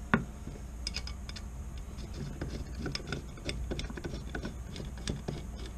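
Small metal clicks and ticks from Ruger 10/22 takedown parts being handled while a small screw is threaded in by hand, with one sharper click just after the start.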